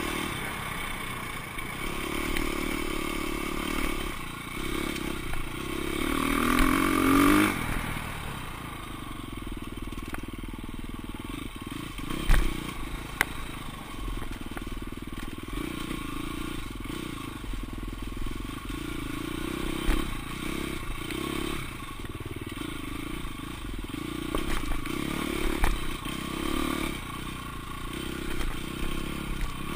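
Off-road dirt bike engine revving up and down with the throttle, heard close from a bike-mounted camera, with the bike clattering over rough trail. The loudest rev climbs in pitch about six to seven seconds in, and there is a sharp knock about twelve seconds in.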